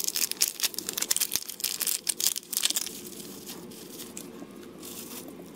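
A metallised foil pouch and a clear plastic sleeve crinkling and tearing as they are pulled open by hand. There is a dense run of crackles for about the first three seconds, then softer rustling.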